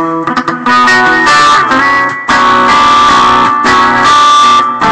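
Yamaha Pacifica electric guitar played through a Digitech RP7 Valve multi-effects pedal on a glassy crunch-clean patch, into a small Yamaha practice amp: a run of quick picked notes, then a chord struck about two seconds in and left ringing, with more notes near the end.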